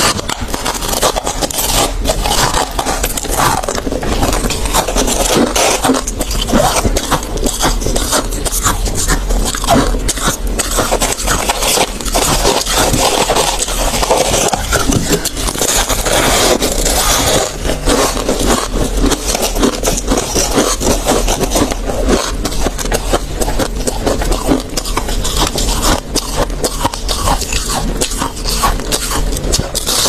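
Freezer frost being chewed close to the microphone: a dense, unbroken run of crisp crunches and crackles.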